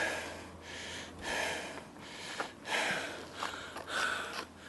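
A man breathing heavily close to the microphone, a breath about every second and a half.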